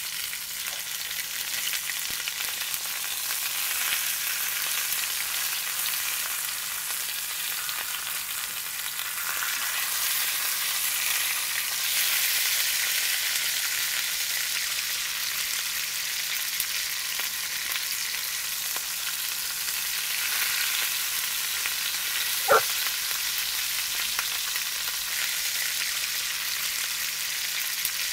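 Food sizzling as it fries: a steady hiss, with one sharp click a little over twenty seconds in.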